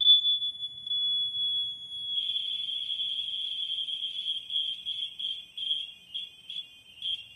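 DuPont AngelEye smoke alarm sounding with a high-pitched screeching tone. It comes on suddenly and holds steady for about two seconds, then turns harsh and wavering, stuttering in quick pulses near the end before cutting off.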